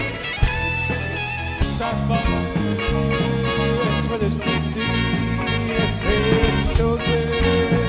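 Swing music played by a live dance band.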